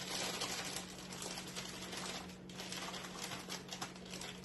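Chicken and teriyaki sauce sizzling and crackling in a hot pan, with a steady low hum underneath and a short lull about two and a half seconds in.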